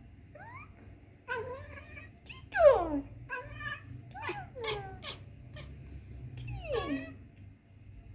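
Domestic cat meowing in a string of about eight short calls, most sliding down in pitch, the loudest about two and a half seconds in, with a quicker run of calls around the middle.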